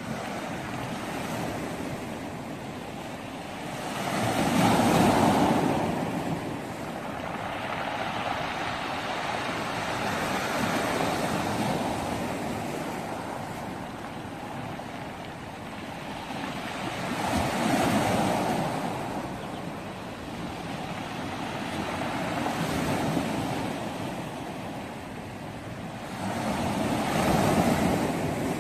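Small sea waves breaking and washing onto a pebble beach: a steady surf wash that swells louder three times as bigger waves come in.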